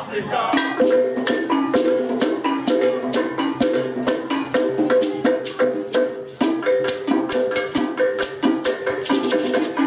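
Pairs of hand-held metal bells struck in a steady interlocking pattern, with a woven basket rattle shaken in time.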